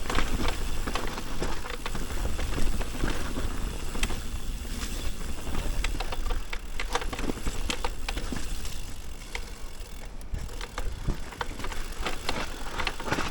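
Mountain bike riding down a rough dirt trail: tyres on the ground, with frequent rattles and knocks from the bike over the bumps, and steady wind rumble on the action camera's microphone.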